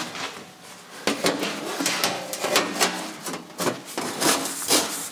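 A sheet-metal floor panel scraping and clattering as it is slid and shuffled into a sheet-metal brake, in short irregular strokes with a brief metallic ring now and then.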